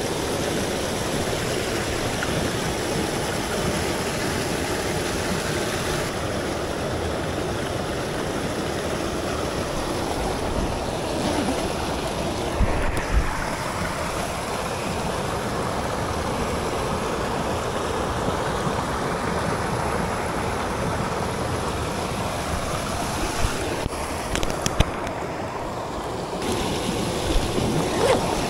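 Mountain headwater stream rushing steadily, with a few short knocks around the middle and again near the end.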